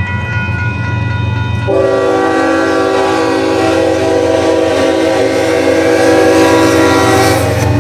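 Union Pacific diesel locomotive's horn sounding one long blast of about six seconds, starting about two seconds in, over the low rumble of the approaching train.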